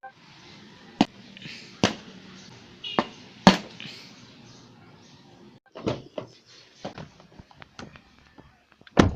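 A series of sharp knocks and clacks: several loud ones in the first few seconds, then a run of smaller clicks and one loud knock near the end.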